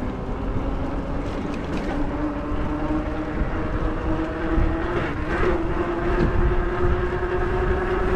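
Electric bike motor whining steadily as the bike rides along, its pitch slowly rising as it picks up speed, over a low rumble.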